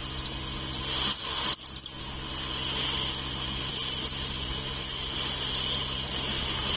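Bird chirping: short, high, rising-and-falling chirps repeated about once a second, over a steady high-pitched insect-like drone and a low steady hum.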